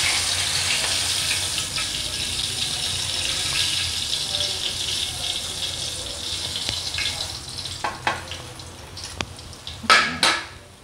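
Hot cooking oil sizzling in a wok after frying a whole milkfish (bangus), the hiss slowly fading. Near the end metal tongs click against the wok, the two loudest clicks just before the end.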